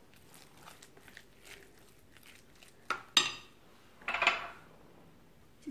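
Faint squishing of hands mixing minced chicken in a glass bowl, then a metal spoon clinks twice against the glass about three seconds in, followed by a short scrape of the spoon in the bowl.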